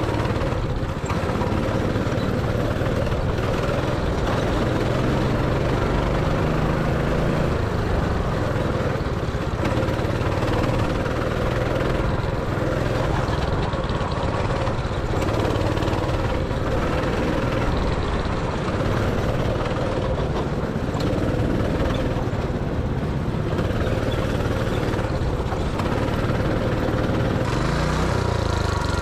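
Go-kart engine running steadily under way on the track, heard from the driver's seat, with its pitch shifting down and up near the end.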